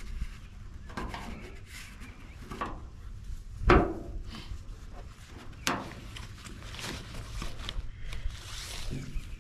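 Handling noises as a truck bed tent's strap and buckle are fastened to the side of a pickup: fabric rustling with scattered clicks and knocks, one louder knock about four seconds in.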